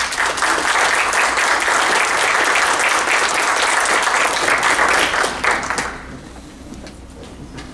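Audience applauding: dense clapping that holds steady for about five and a half seconds, then dies away.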